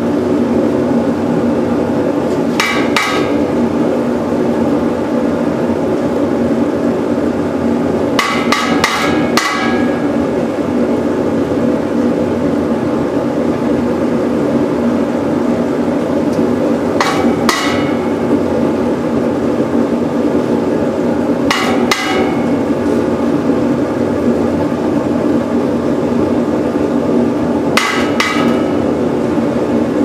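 Forced-air propane burner and blower of a firebrick-lined casting furnace running steadily. Over it, a steel skimming tool clanks against metal in five short bursts of two to four sharp clinks, knocking off dross skimmed from molten aluminium.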